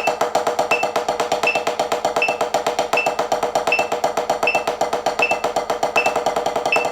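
Drumsticks playing fast, even single strokes on a 12-inch HQ RealFeel practice pad as sextuplets at 80 bpm, about eight strokes a second. A metronome clicks steadily over them about once every three-quarters of a second.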